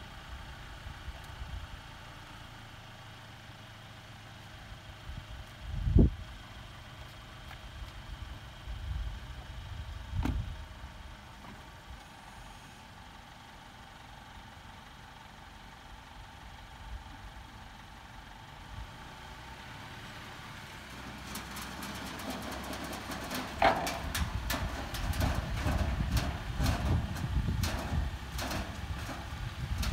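A car door shuts with a thump about six seconds in. From about twenty seconds on comes a run of clanks and knocks over a low rumble as a Mercedes-Benz sedan drives up the metal loading ramps onto an open car-carrier trailer.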